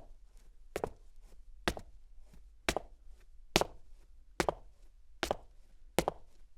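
Footsteps of boots on cement, walking at a steady, unhurried pace of a little over one step a second, each heel strike a sharp clack.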